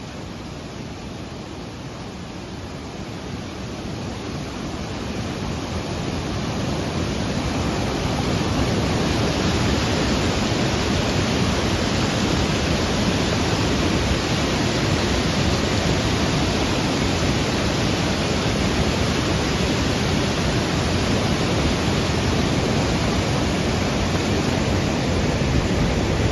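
Steady rushing water noise from heavy monsoon rain and floodwater, growing louder over the first eight seconds or so and then holding level.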